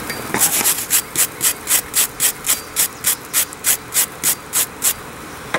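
A steel wire brush is scrubbed back and forth over the red-hot, freshly forge-welded end of a steel wire cable to clean it. It makes a quick, even rasping, about three to four strokes a second, which stops about five seconds in.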